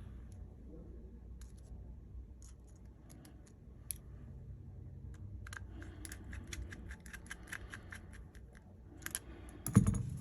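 Light clicks and taps from a smartphone and small tools being handled on a repair bench: scattered clicks, then a quick run of about six clicks a second for a few seconds, and a louder knock near the end.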